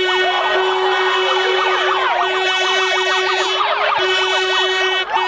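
Plastic stadium horns blowing a steady drone, while a handheld megaphone's siren sweeps rapidly up and down over it.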